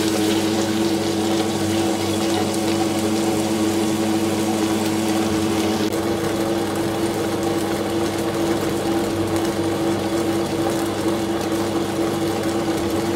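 Tabletop wet grinder running steadily, its stone rollers grinding soaked idli rice in a steel drum with a constant motor hum; water is poured into the drum at the start. The rice is partway through grinding and still coarse.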